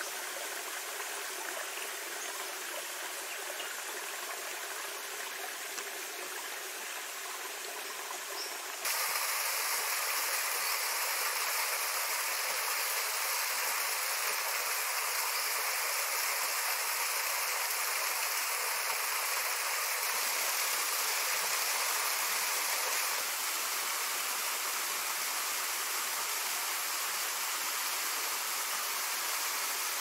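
Running water: a shallow creek trickling over rocks, then, from about nine seconds in, the louder steady rush of a small waterfall splashing down a rock cleft into a pool.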